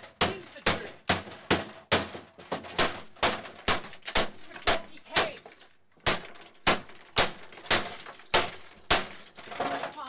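Claw hammer striking a 1982 Brother Cassette 3912C electric typewriter over and over, about two blows a second, its plastic and metal parts cracking and breaking. The blows pause briefly just past halfway, then resume.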